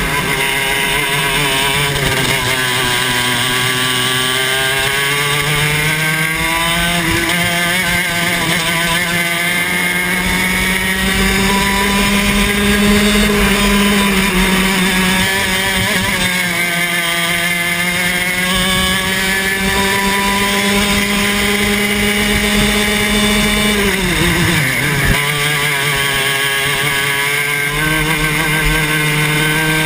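Club 100 TKM 115cc two-stroke kart engine at racing speed, heard from the kart itself: the revs climb steadily along the straights and drop off as the kart brakes into corners, several times, most sharply about four-fifths of the way through.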